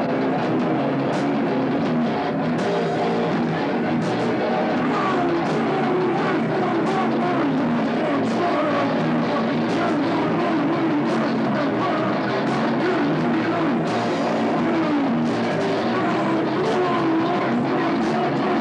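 Rock band playing live: guitar over a drum kit keeping a steady beat, loud and continuous.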